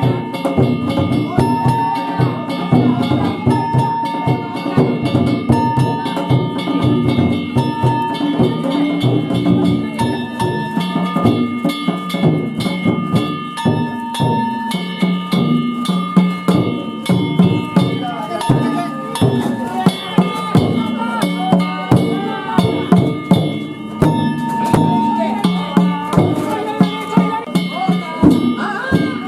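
Danjiri festival music: taiko drums and small hand gongs (kane) beaten in a fast, continuous rhythm, the gongs ringing over the drumming.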